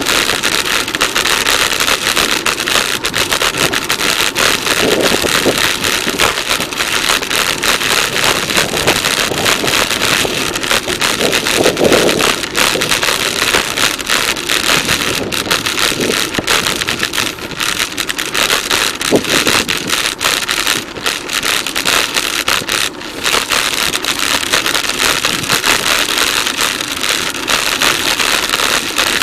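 Rushing noise of a bicycle ride on a camera microphone: wind blowing over the mic together with rolling road noise, a loud steady rush with constant crackle.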